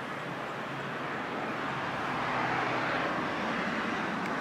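Rushing noise of a passing vehicle, swelling slowly and loudest about three seconds in.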